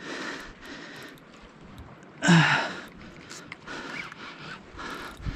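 A man's short grunt about two seconds in, over a faint steady hiss with scattered light clicks.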